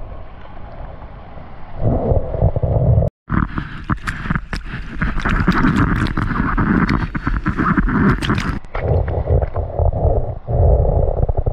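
Seawater rushing and splashing over a surfer's action camera as a wave breaks around it, with dense sharp spatters of water hitting the camera through the middle. Low wind rumble on the microphone comes in and out while he rides the wave. The sound cuts out for a moment about three seconds in.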